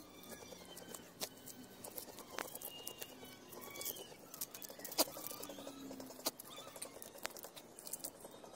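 Faint scattered sharp clicks and ticks, the loudest about five seconds in, with a few short bird chirps in the background.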